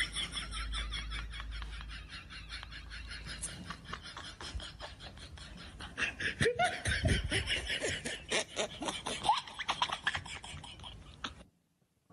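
Several people laughing hard: high-pitched giggling that comes in quick repeated pulses, louder again about six seconds in, cutting off suddenly near the end.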